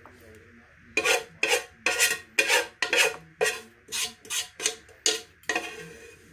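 A spoon scraping the pot of cooked no-bake cookie mixture in about a dozen quick strokes, two to three a second, as the last of the chocolate-oat mixture is dipped out.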